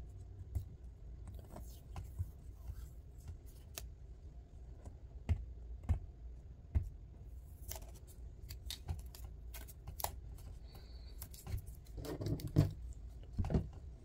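Hands handling a Wuben L1 flashlight and peeling a plastic label strip off its tail cap: scattered small clicks, taps and light scraping, with a louder flurry of handling clicks near the end.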